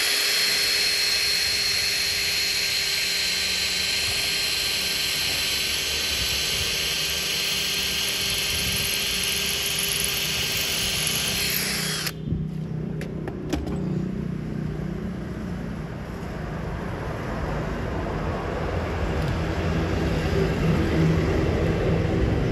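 Power drill running steadily as it bores a hole into a masonry wall with a long masonry bit. It cuts off abruptly about twelve seconds in, leaving a quieter rumble of background noise.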